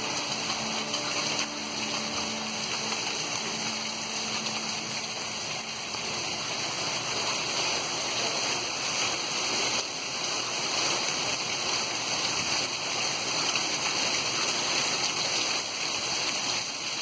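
Heavy rain pouring steadily, a dense, even hiss of a downpour.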